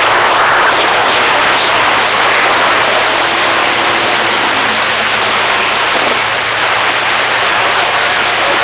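Steady loud hiss of static from a CB radio receiver with the squelch open on an empty channel, with a faint steady tone buried in the noise midway through.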